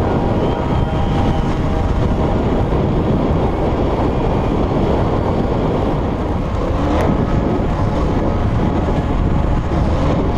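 Motorcycle riding at speed on an open road, the engine almost hidden under steady wind rush and buffeting on the on-bike camera's microphone.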